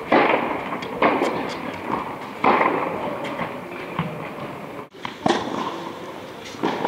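Tennis ball struck by rackets during a rally in an indoor tennis hall: sharp pops about once a second, each ringing on in the hall's echo.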